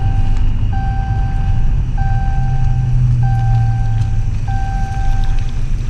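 Car's seatbelt warning chime sounding a steady run of beeps, each about a second long, over the low hum of the engine: the occupants' seatbelts are not fastened.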